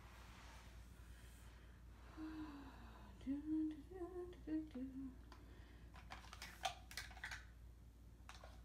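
A woman humming a short tune quietly, a handful of notes over about three seconds. A few light clicks follow a little later.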